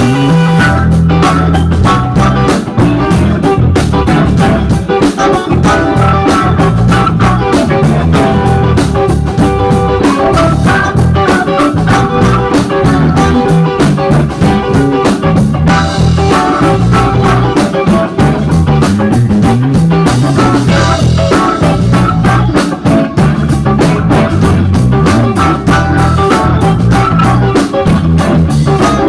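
Live band playing an instrumental number: electric guitar lines over electric bass and a drum kit, loud and dense.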